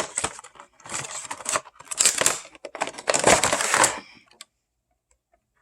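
Packaging of a Funko figure being torn and rustled open by hand: several bursts of crinkling and tearing, the longest and loudest just before it stops about four seconds in.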